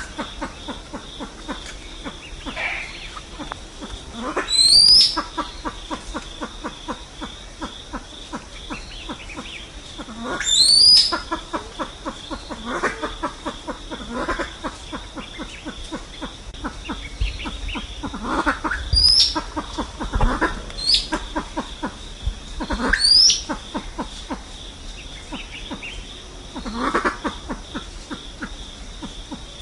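Lophura pheasants calling: sharp rising whistled calls repeated every few seconds, with softer, lower rising calls between them and fast ticking underneath.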